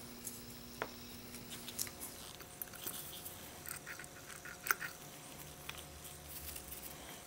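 Faint small clicks, taps and scratchy rubbing of gloved hands at work: a cotton swab pressed onto the pump plate of an isopropyl alcohol dispenser and worked between the fingers, with one sharper click about two-thirds of the way through.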